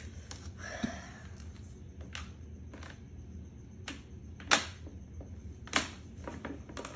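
Scattered light clicks and knocks, with two sharper ones past the middle, over a steady low hum.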